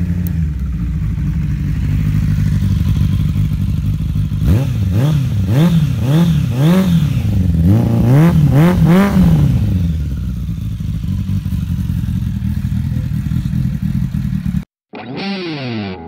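Suzuki Bandit's inline-four engine idling through a short stubby exhaust can, then blipped up and down in a quick run of revs from about four and a half seconds in before settling back to idle. Near the end it cuts off abruptly and guitar music begins.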